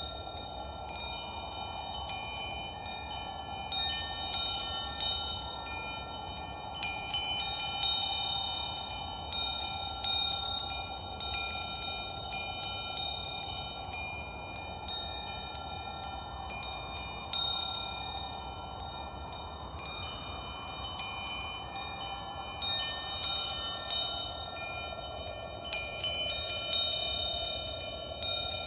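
Wind chimes tinkling, struck at irregular moments with several high notes at a time ringing on. Underneath is a soft whooshing hiss that swells and fades.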